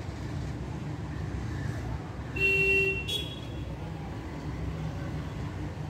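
Steady low traffic rumble, with a vehicle horn sounding once for about half a second a little over two seconds in, followed at once by a brief higher tone.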